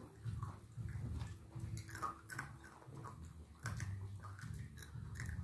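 Close chewing and mouth-smacking of people eating rice and fried chicken with their hands, heard as a run of small wet clicks.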